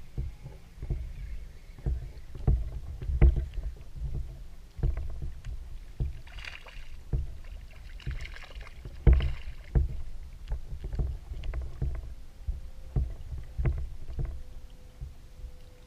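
Small waves slapping and knocking irregularly against the hull of a small floating craft, several times a second. There are two brief splashing hisses on the water about six and eight seconds in.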